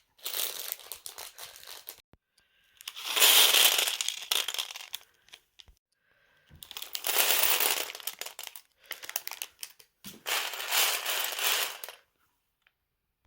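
Plastic parts bags from a Lego Technic set being handled and crinkled, in four spells of about two seconds each with short pauses between.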